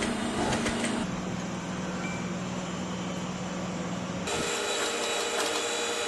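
Sewing machine running steadily, stitching a French seam along the edge of a fabric pocket. The sound changes abruptly twice, about a second in and again after about four seconds.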